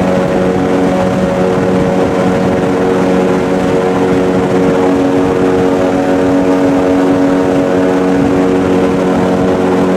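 Airboat underway at speed: its engine and large air propeller make a loud, steady drone.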